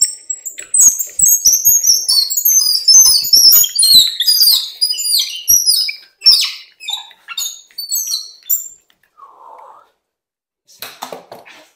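Rapid high squeaks of a steel bolt being twisted through tight drilled holes in wooden vise jaws, metal rubbing on wood, with scattered knocks of the bolt and wood. The squeaking stops about two-thirds of the way in.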